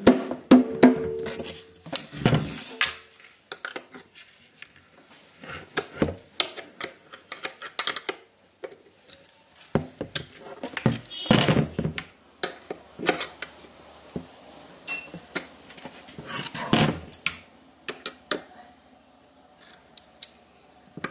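Dholak being tuned: a metal tuning key clicking and scraping on the drum's screw-bolt tensioners, with a few louder knocks among the clicks. The last drum stroke rings out at the start.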